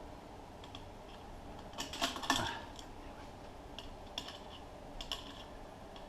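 Metal hand tools clinking against bolts, as a socket or wrench is fitted and worked on the brake drum's fasteners. A clatter of clinks about two seconds in, then a few single clicks.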